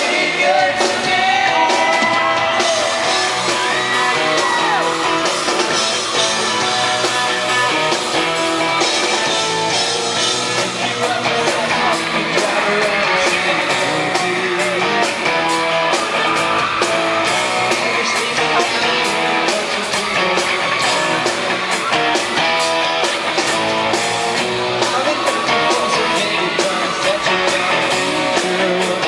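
Live pop-rock band playing: male voices singing over guitars and a steady drum beat.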